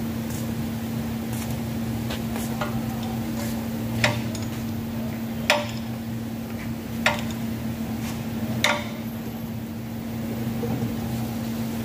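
Metal hand tool working on a car's underbody: light clicks, then four sharp metallic clinks with a short ring, about a second and a half apart, over a steady hum.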